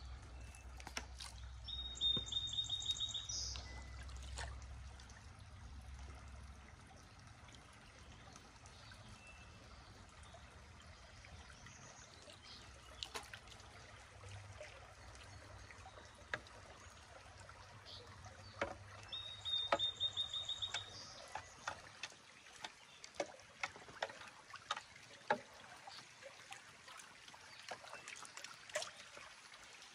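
Creek water trickling and running around a canoe over shallow riffles, with scattered light ticks and drips. A songbird sings a short trilled phrase twice, once near the start and once about two-thirds of the way through. A low rumble stops about two-thirds of the way through.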